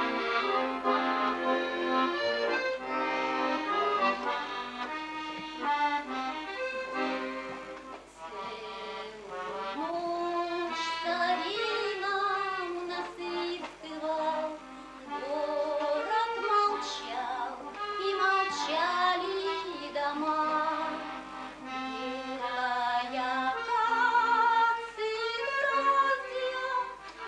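Accordion music: a tune played on accordion, with pitched notes throughout.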